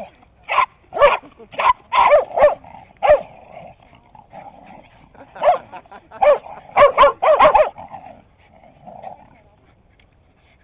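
A dog barking in short, sharp barks during play: about seven in the first three seconds, then a quick run of barks about six to eight seconds in.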